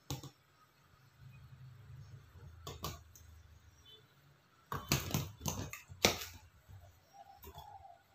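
Pliers gripping and bending over the end of a stiff length of cage-frame line: scattered sharp clicks and snaps, loudest in a cluster about five to six seconds in, over a faint low hum.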